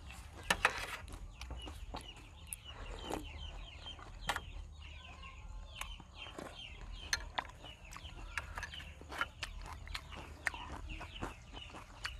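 Close-miked eating sounds: sharp spoon clicks and chewing, the loudest clicks about half a second in. Behind them, birds make many short, repeated downward chirps.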